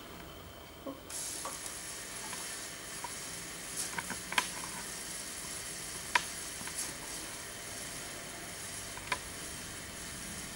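LEGO M motor running steadily as it winds in a crane's string to hoist a weighted bucket, a faint whir of motor and gears that starts about a second in. A few sharp clicks sound over it.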